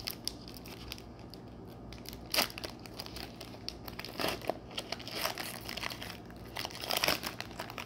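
Foil Pokémon booster pack wrapper crinkling as it is torn open by hand, in several short irregular bursts.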